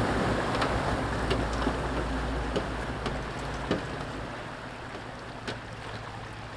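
A four-wheel drive running through a river crossing, its low engine sound under the wash of water fading away over the first four seconds as it moves off, leaving the river flowing.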